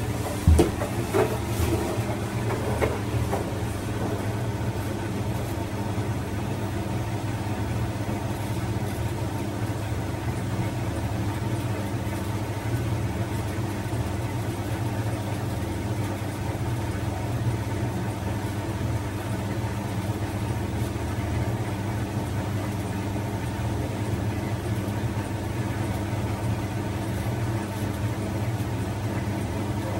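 Bosch front-loading washing machine running near the end of its wash programme, a steady motor and drum hum, with a few sharp knocks in the first three seconds.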